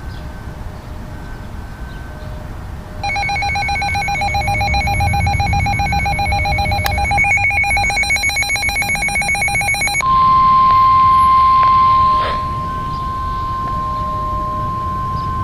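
Emergency weather alert tones ahead of a severe thunderstorm warning broadcast. A rapidly pulsing alarm starts about three seconds in. At about ten seconds it gives way to a steady single-pitch tone, loudest for about two seconds and then continuing more quietly.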